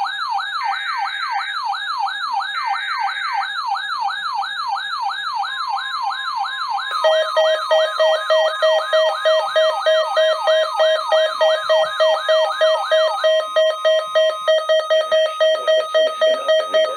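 Emergency alert sounding on a weather radio: an electronic siren sweeps up and down about twice a second, with two short screeching bursts of digital alert data under it in the first few seconds. About seven seconds in, a fast pulsing beep joins at three to four pulses a second and carries on alone after the siren stops near the end.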